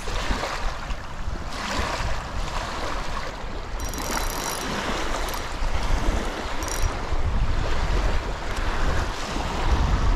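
Wind buffeting the microphone, with lake water washing against the bank in a steady rushing noise.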